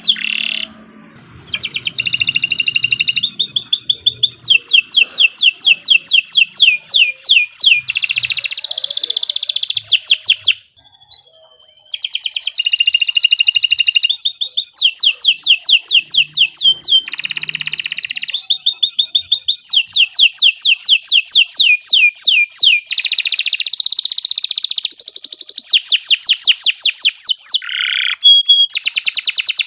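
Domestic canary singing a long, loud song made of runs of fast, evenly repeated high notes and trills. The song pauses briefly about ten seconds in.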